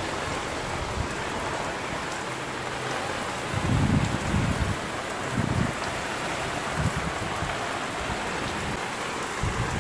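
Heavy rain pouring onto a tiled rooftop terrace in a steady hiss, with strong gusts of wind buffeting the microphone in short low rumbles, the strongest about four seconds in.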